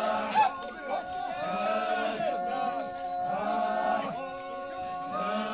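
Several voices chanting together in long held notes, each phrase lasting about a second before a short break.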